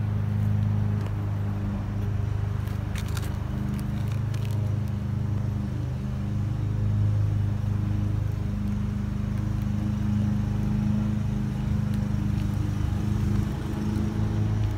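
A steady low hum from some machine, with a few faint clicks and rustles about three to four and a half seconds in.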